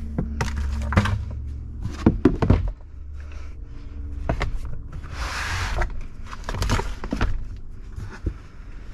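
Metal parts of an opened-up differential being handled: scattered clinks and knocks, with a short hiss about five seconds in.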